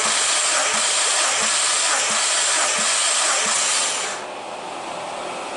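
Mazda 1.6 L 16-valve four-cylinder engine being cranked over for a compression test of its third cylinder: a loud, steady whirring hiss with a faint thud about every 0.7 s as the cylinder compresses, building the gauge to 14 kg/cm². About four seconds in the cranking stops and a quieter hiss remains.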